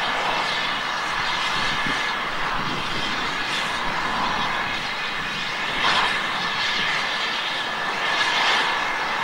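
Steam locomotive Twizell standing still and hissing steam, a steady rush with slow swells in strength.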